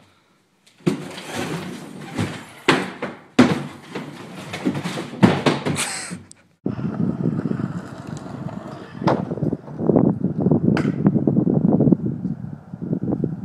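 Kick scooter wheels rolling on a plywood ramp, with several sharp knocks and clatters as the rider crashes onto the ramp. About seven seconds in it cuts suddenly to a steady wind rumble on the microphone with a few clicks.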